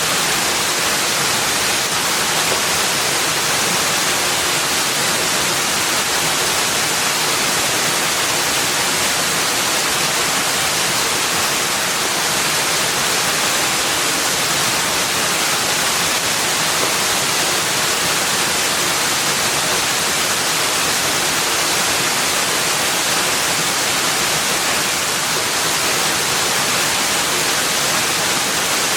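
Steady rushing water, an even hiss with most of its weight high up and no change in level throughout.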